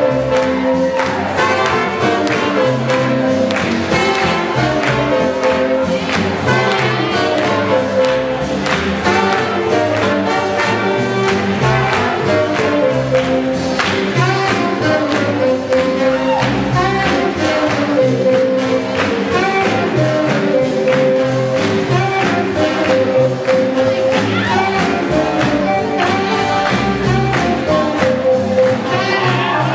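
Live swing big band playing, with trumpets and trombones over an upright bass and drums keeping a steady beat.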